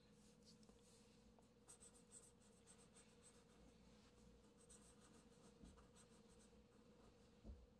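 Faint scratching of a felt-tip marker drawn across paper in many short strokes, over a steady low hum, with a soft low thump near the end.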